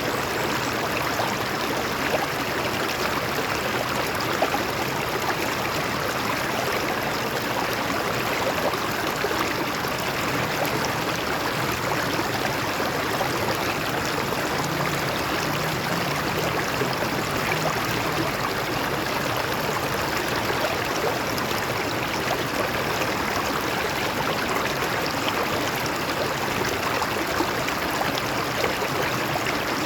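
A stream flowing and splashing over rocks: a steady rush of running water with small gurgles and trickles.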